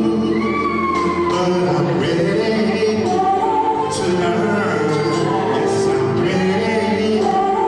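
A man singing karaoke into a microphone over a recorded backing track, both played through the PA speakers.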